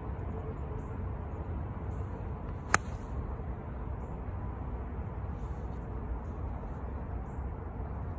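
An 8-iron striking a golf ball off turf once, a single sharp click about three seconds in, over a steady low outdoor rumble.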